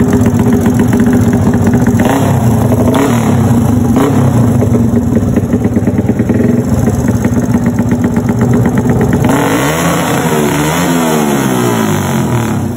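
Modified underbone motorcycle with an open racing exhaust, revved hard in place for a loudness test: held at steady high revs, then the revs dip and rise several times near the end.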